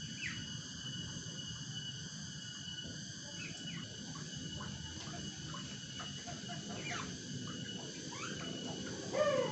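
Cicadas buzzing in a steady high-pitched chorus, with many short chirping calls over it and a louder animal call near the end.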